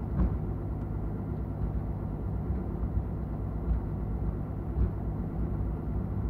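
UL Power engine and propeller of a Van's RV-7 running at low power while taxiing, a steady low drone heard from inside the cockpit, with a few faint clicks.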